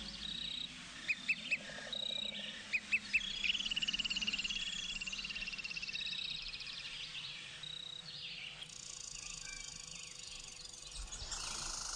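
Several birds singing: short, evenly repeated high whistles, two quick runs of three chirps, and a trill a few seconds in. A steady high buzz, like insects, joins near the end.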